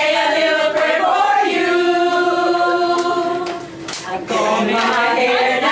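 A group of people, mostly women, singing together in unison without accompaniment, holding long notes.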